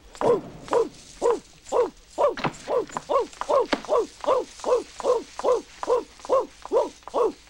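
A woman's voice imitating an orangutan: short 'ooh ooh' hoots repeated over and over in a steady rhythm, about two and a half a second.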